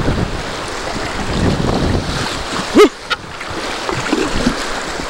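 Rough river rapids rushing and splashing around a dugout canoe as it is paddled through, with wind buffeting the microphone. About three seconds in comes one brief, loud pitched sound that rises and then falls.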